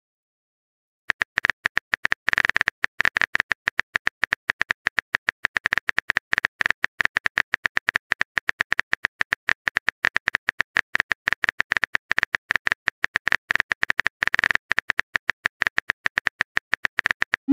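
Rapid key-tap clicks of a phone texting app's typing sound effect, a dense stream of sharp ticks as a message is typed letter by letter, starting about a second in.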